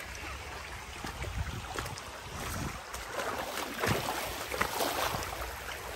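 Traxxas TRX-4 RC crawler wading through a shallow rocky creek: irregular splashing and sloshing of water against the truck over the steady run of the stream, the splashes picking up from about a second in.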